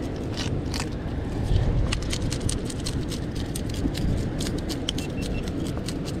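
Fish being scaled with a knife: rapid, irregular scraping clicks as the scales come off, over a steady low rumble.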